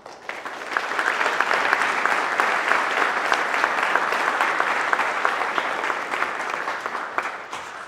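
Audience applauding: many people clapping. The applause builds up over the first second, holds steady, and dies away near the end.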